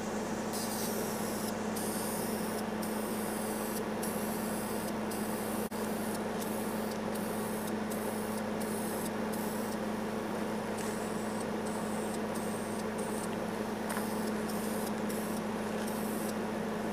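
Aerosol can of spray paint hissing in many short bursts with brief breaks between them, over a steady low hum.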